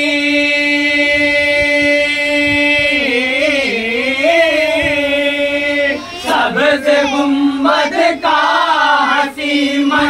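Men singing an Urdu naat (devotional poem) together. They hold one long note for about three seconds, bend it in a wavering run, hold it again, and then move into a new melodic phrase about six seconds in.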